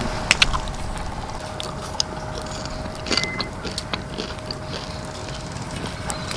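Scattered crisp clicks and rustles of popcorn being scooped by hand from a cast-iron pot-lid pan, loudest just after the start and again about three seconds in, over a steady low background noise with a faint hum.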